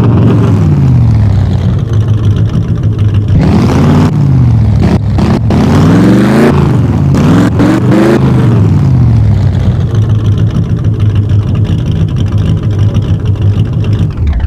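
Racing car engine revving: the pitch drops, then sweeps up and down several times in the middle, and settles into a steady lower note before cutting off at the end.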